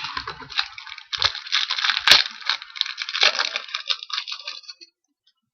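Crinkling and tearing of a trading-card pack's foil wrapper being opened by hand, a dense crackle with a sharp snap about two seconds in, stopping shortly before the end.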